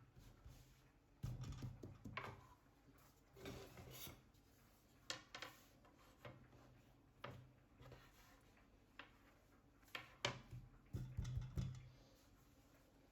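Quiet handling sounds: scattered light knocks and taps, with a few short stretches of low rubbing or scraping.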